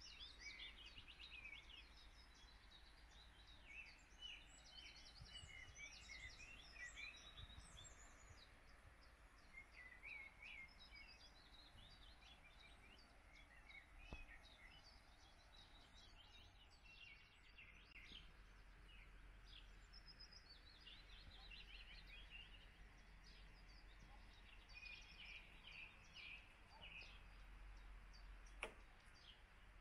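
Faint dawn chorus: several small birds singing and chirping on and off, over a steady low rumble. One sharp click near the end.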